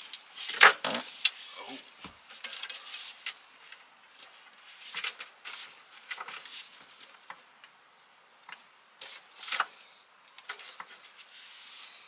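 Hands working plastic hose and metal pipe fittings onto a camper-van water heater: irregular clicks, small rattles and rustling, loudest about a second in.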